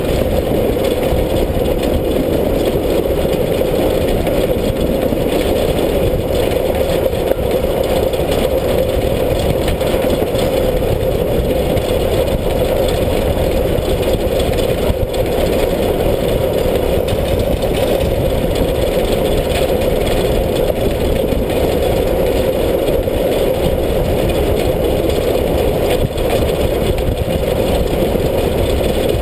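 Steam locomotive S 33-037 under way, heard from a camera fixed to its side: a loud, steady rush of running noise and air, with no distinct beat.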